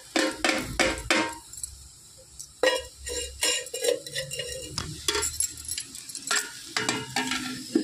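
Metal ladle stirring chopped vegetables and split chickpeas in a metal handi, scraping and clinking against the pot in irregular strokes, with a short lull about two seconds in.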